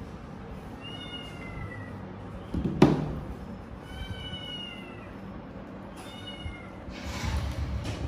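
Grey-blue British Shorthair kitten meowing three times in high, thin calls, the first two about a second long and the last one short. There is a single thump about three seconds in.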